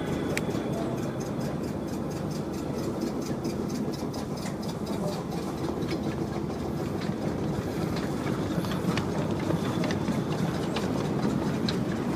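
Ridable-scale model of a Norfolk & Western class A steam locomotive running out of a stone tunnel and past close by: a steady rumble with rapid, even clicks of about five a second.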